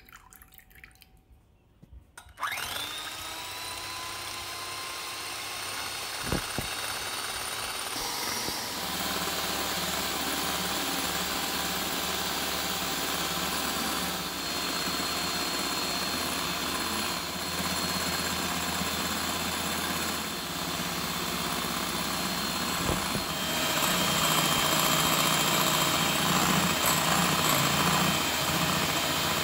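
Electric hand mixer switched on about two seconds in, its motor whining up to speed, then running steadily as its beaters whip egg whites in a glass bowl. It grows louder about three quarters of the way through.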